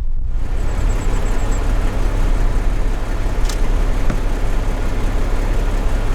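Steady engine and road rumble of a 2017 Jeep Wrangler JK Rubicon driving, heard from the vehicle, with a single brief tick about three and a half seconds in.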